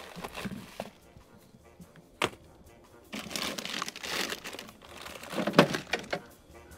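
Handling noise: crinkling and rustling with a few sharp knocks and clicks, the loudest knock about five and a half seconds in, as a rigid folding panel and gear are moved about.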